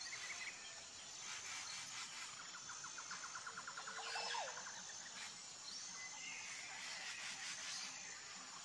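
Birds chirping and calling, with a rapid trill of about ten notes a second around the middle and a short whistled call just after it. Leafy cut branches rustle faintly as they are handled.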